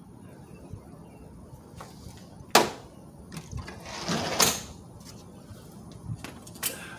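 Rear door of a Ford E-150 van unlatched with a sharp clack, then a hinged wooden fold-down table on the inside of the door lowered with scraping and light knocks, and another click near the end.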